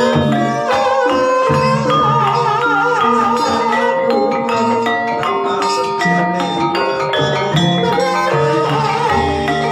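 Javanese gamelan music played on mallet instruments, with many short struck, ringing notes in a steady running pattern and a wavering melody line over them about two to three seconds in. It is the accompaniment of an ebeg trance dance (janturan).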